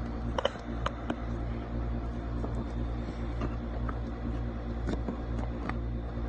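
A phone being handled and set in place: a few soft knocks and rubs against the microphone in the first second, then scattered faint clicks, over a steady low hum.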